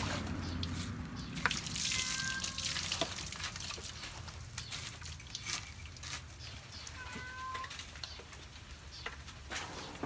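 Water scooped from a plastic basin with a dipper and poured over a dog's back during a bath, splashing and dripping, with hands rubbing the wet coat. Two short high-pitched squeaks come about two seconds in and again about seven seconds in.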